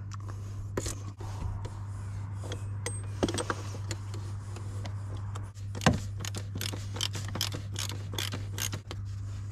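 Metal clicks and knocks of a 32 mm socket and breaker bar being worked on a BMW M57 diesel's plastic oil filter housing cap to unscrew it, with a quick run of clicks in the second half.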